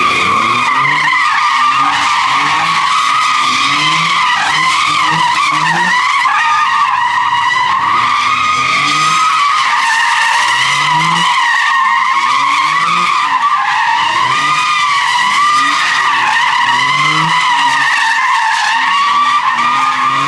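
A car's tyres squealing without a break as it spins donuts, a steady high screech that wavers in pitch, while the engine revs up and eases off about once a second.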